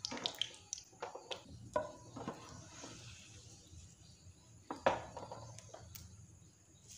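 Light, scattered knocks and clinks of a perforated skimmer against a frying pan and plate, with one sharper knock about five seconds in, over a faint low hum.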